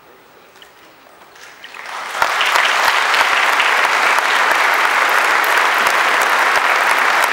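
Audience applause at the end of a song: a short hush with a few scattered claps, then about two seconds in the whole audience breaks into full, steady clapping.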